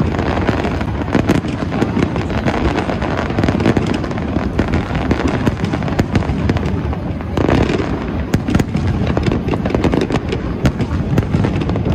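Aerial fireworks display: continuous overlapping booms of shell bursts with many sharp crackles running through them, swelling louder about seven and a half seconds in.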